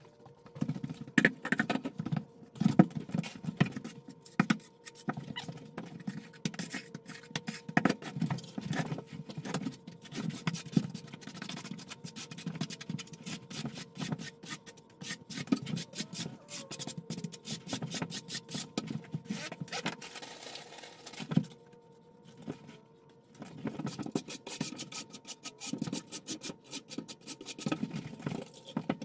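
Rapid, jumbled scraping and clicking of a trowel spreading and combing thinset mortar, played back sped up as in a time-lapse, with a short lull about two-thirds through.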